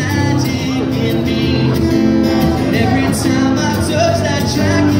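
Live acoustic guitar played while a man sings into a microphone.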